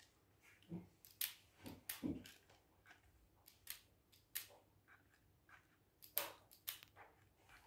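Magnetic fidget rings clicking as they snap together and slide apart: faint, irregular clicks, a few at a time with pauses between.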